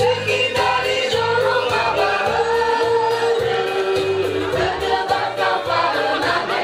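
A group of women singing a maena, the Nias round-dance chant, together as a choir in long sustained lines over a steady low beat.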